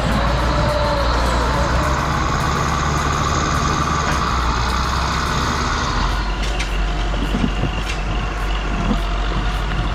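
Heavy diesel forestry machine engine running steadily under load, its sound changing about six seconds in.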